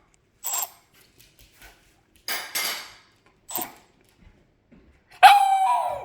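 A few short, sharp clattering noises, then about five seconds in a dog suddenly lets out a loud, drawn-out howling bark that falls in pitch.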